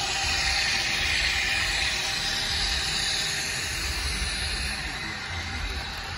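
Model train running past close by: a steady whir and rolling wheel noise from the Kato AC4400CW locomotives and the tank cars on the track, easing off a little as the locomotives go by and the tank cars follow.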